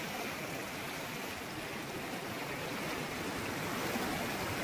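River water rushing steadily: an even, unbroken wash of noise.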